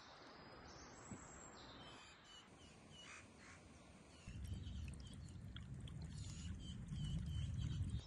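Forest ambience with small birds chirping. About four seconds in, the steady, deep rush of a mountain stream cascading over rocks comes in, louder, with the birds still chirping above it.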